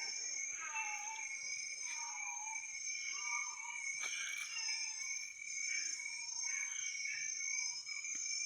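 A bird calling over and over, a short note that falls in pitch about once a second, over a steady high drone of insects.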